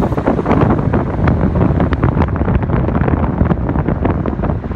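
Wind buffeting the microphone of a phone filming from a moving car, a steady rushing with crackles, over the low drone of the car's road noise.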